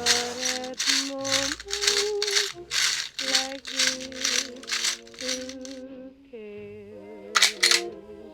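Rhythmic rattling, about two shakes a second, over a tune of held tones that step in pitch. Around six seconds in the rattling stops while a wavering tone is held, then two more shakes follow.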